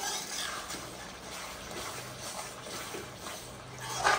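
Yogurt-and-spice masala bubbling and sizzling in a pan as it roasts, with stirring and a brief louder spoon-on-pan sound near the end.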